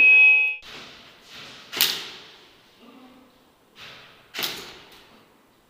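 A loud buzzer-like tone cuts off about half a second in. Sharp cracks follow every couple of seconds, the loudest near two and four and a half seconds in, each ringing off in a large hall.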